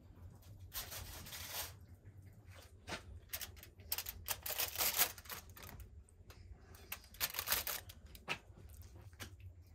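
Aluminium foil crinkling and rustling in three bouts, with small clicks, as fish is handled on foil-lined trays.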